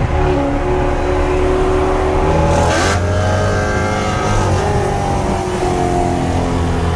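BMW E93 M3's S65 V8 running through a Dinan exhaust at low speed alongside in traffic; its pitch dips and climbs again about halfway through as the throttle changes.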